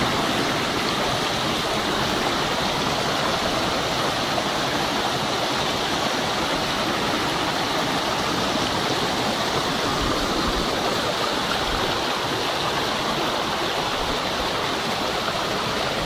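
Shallow rocky stream running and splashing over stones and between boulders, a steady, even rush of water.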